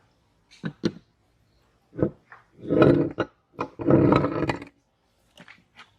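Meat grinder crunching through beetroot in short, irregular bursts, with a few sharp clicks first and the two loudest bursts about three and four seconds in.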